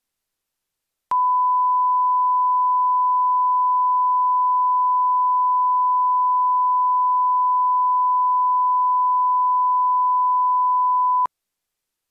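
Television colour-bars line-up tone: a single steady, pure 1 kHz beep that starts abruptly about a second in and cuts off abruptly about a second before the end.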